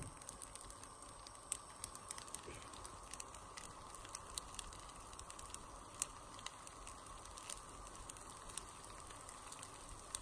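Baghrir (Moroccan semolina pancake) batter cooking in a hot nonstick frying pan: a faint steady hiss with scattered small pops and clicks, as bubbles rise through the batter and burst into the holes that mark a well-made baghrir.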